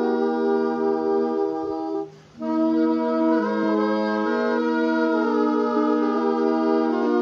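Several multitracked saxophone parts playing a slow hymn in close chordal harmony, mostly long held notes. All the parts stop together for a brief breath about two seconds in, then come back in.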